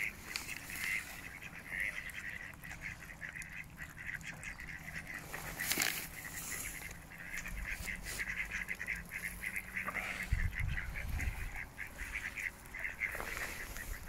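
A flock of mallard ducks quacking and calling, with short calls coming in quick runs throughout. There is a sharp click near the middle and a brief low rumble about ten seconds in.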